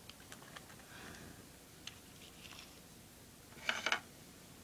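Light clicks and taps of small plastic toy figures being handled and set down, with a brief louder rustle near the end.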